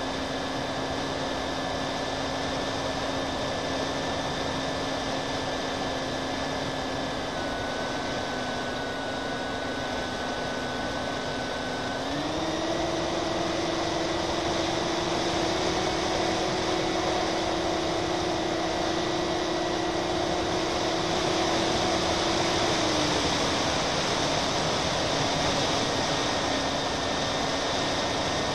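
Twin-engine FPV model airplane's motors and propellers droning in flight, with a steady whine over wind rush. The pitch steps up about twelve seconds in as the throttle is raised, then falls back about eleven seconds later.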